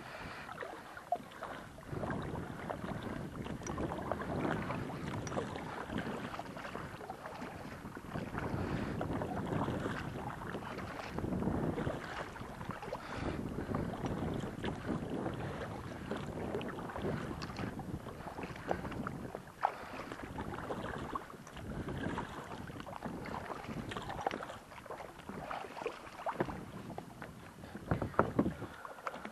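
Water splashing and sloshing against a kayak's hull and paddle as it is paddled, with uneven swells and small splashes, and some wind on the microphone.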